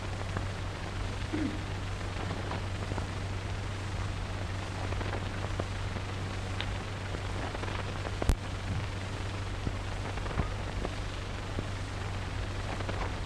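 Steady hiss and low hum of an old optical film soundtrack with no dialogue, with scattered faint crackles and one sharp click about eight seconds in.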